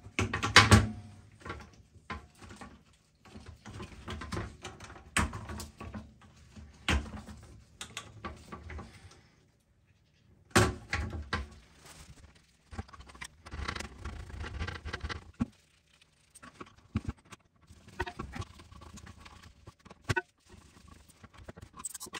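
Plastic slow-close toilet seat being handled and fitted onto a porcelain toilet bowl: irregular knocks, clicks and rattles of the seat and its plastic hinge fittings. The loudest knocks come near the start and about ten seconds in.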